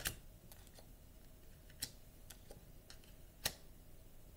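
Oracle cards handled on a wooden table: a few light, scattered clicks and taps, the sharpest about three and a half seconds in.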